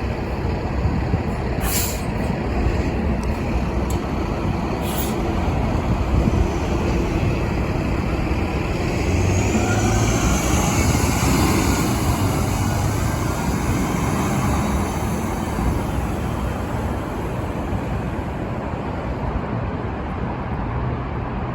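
Diesel engine of a Nova Bus LFS articulated city bus running under way, with a whine that rises and falls about nine to twelve seconds in, typical of this bus's loud turbocharger whine. Two short air hisses come about two and five seconds in.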